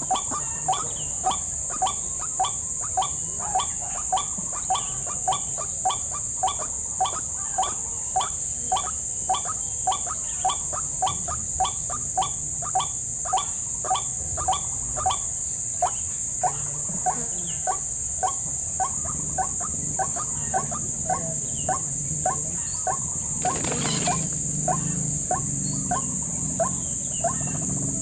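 White-breasted waterhen call, the short ruak-ruak note repeated evenly more than once a second, of the kind played as a trapper's lure, over a steady high-pitched insect buzz. A brief rustling noise comes about 24 seconds in.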